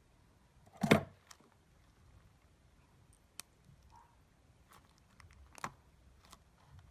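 Plastic bag of glitter slime squeezed by hand, giving faint scattered clicks and crackles of the plastic and slime. One louder knock comes about a second in.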